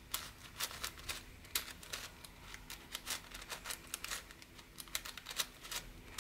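Magnetic 7x7 speedcube (Yuxin Little Magic 7x7 M) being turned by hand, its layers clicking irregularly about three times a second. The turning is stiff from its very tight out-of-box tensions and strong magnets.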